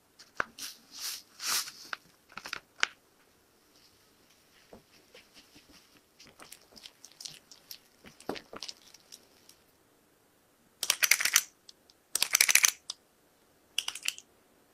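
Moist shredded-coconut filling being stirred in a glass bowl and scooped: soft scraping and crunching. Two louder crackling scrapes come about eleven and twelve seconds in, and a shorter one near the end.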